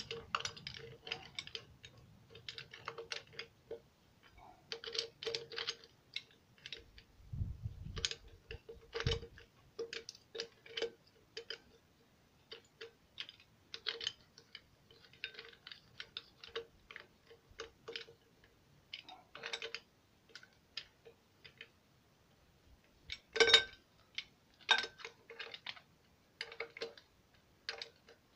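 Hand ratchet wrench clicking in quick runs of short clicks as it works a bolt in the centre of an engine's flywheel. A few dull low knocks come about seven to nine seconds in, and a single louder click comes near the end.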